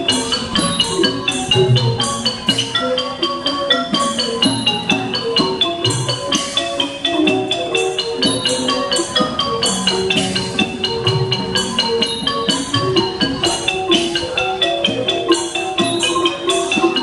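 Thai classical piphat ensemble playing dance music: ranat xylophone and gong circles lead with dense, rapid mallet strokes in running melodic lines, over intermittent low drum beats.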